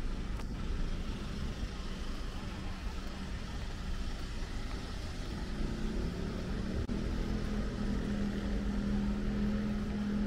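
Steady street traffic noise. About halfway through, the steady pitched hum of a nearby vehicle's engine comes in and holds.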